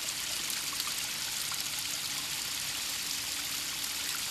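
Water of a stream or creek rushing over rocks, a steady even rush.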